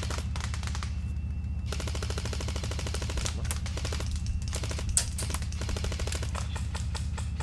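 Airsoft guns firing on full auto: a fast, unbroken stream of shots with sharper separate cracks on top, starting abruptly just before and running on without a pause.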